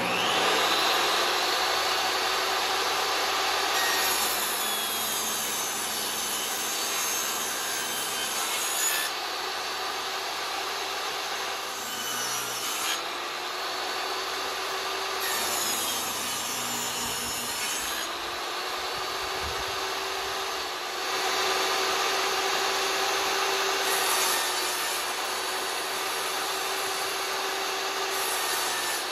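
Jobsite table saw running and ripping wooden boards, starting suddenly. The blade's hum sags in pitch briefly a couple of times in the middle as the wood is fed through the cut.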